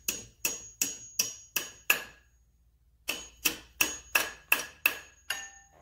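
A hammer tapping steel brake pad retaining pins into a C7 Corvette brake caliper, driving them in until they seat. Six quick metallic strikes about three a second, a pause of about a second, then seven more, each with a short ring.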